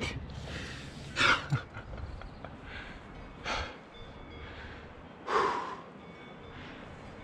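A rock climber's hard, forceful breaths while pulling through a crack: short sharp exhalations every couple of seconds, the loudest about a second in and about five seconds in.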